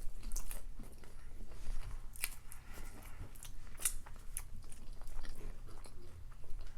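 Close-miked chewing of crunchy food, with scattered crisp crackles and crunches, a few sharper ones in the middle stretch.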